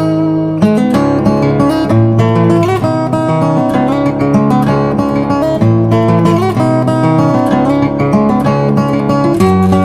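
Background music: acoustic guitar strumming and picking chords at a steady pace.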